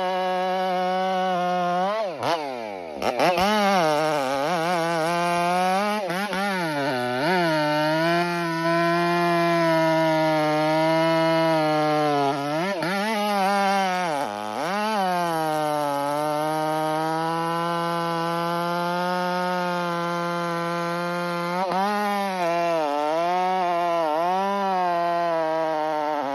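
Ported Stihl MS 500i fuel-injected two-stroke chainsaw running at full throttle while bucking through a large log. The revs drop sharply and climb back about two seconds in, then sag under load and recover several more times as the chain bites.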